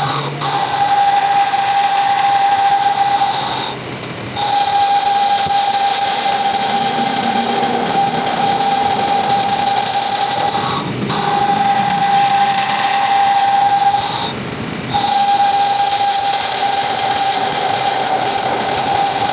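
Metal being cut or turned in a machine shop: a steady, loud, high-pitched whine over a hiss, dropping out briefly four times.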